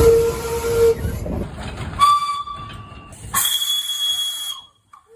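Steam locomotive whistle blasts, several in quick succession. First a lower steady whistle over the noise of the working engine, ending about a second in; then a higher, shrill single-pitch blast; then another high blast over a loud hiss of steam.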